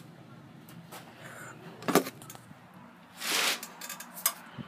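MGP VX4 stunt scooter clicking and rattling as it is leaned: one sharp click about two seconds in, a short rattling scrape a little past three seconds, then a few lighter clicks near the end. The cause is unknown.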